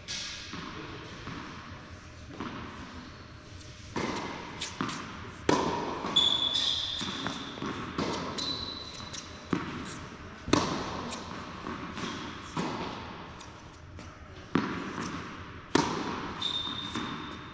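Tennis balls bouncing and being struck on an indoor hard court, irregular sharp knocks every second or two that echo through the hall, with a few brief high-pitched sneaker squeaks.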